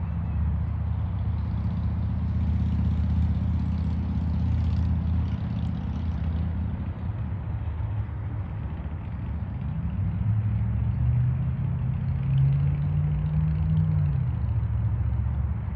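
An engine running: a steady low hum that changes partway through, then a tone that rises and falls over a few seconds near the end.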